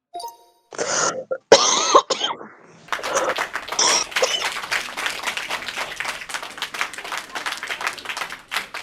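A heavy smoker's deep, chesty cough: two hard coughs in the first two seconds, then a long unbroken coughing fit from about three seconds in.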